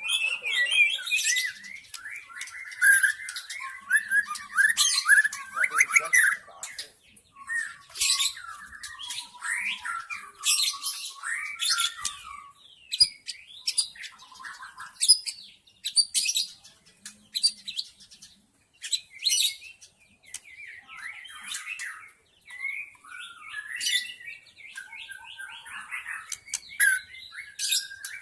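White-rumped shama song: a long, varied run of whistled and chattering phrases, mixed with sharp, high, clipped notes and harsh calls, coming in quick bursts with short pauses between them.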